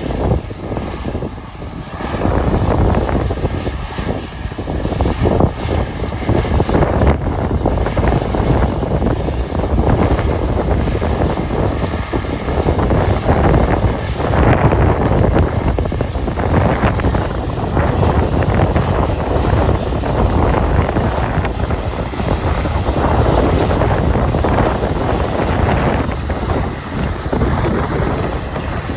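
Old Massey Ferguson combine harvester running in a soybean field, with wind gusting hard on the microphone so that the level surges and falls throughout.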